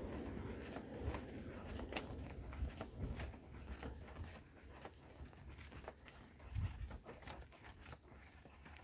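Footsteps on a paved path with faint clicks and rustle from a handheld phone, about two ticks a second. A low traffic rumble dies away over the first two seconds.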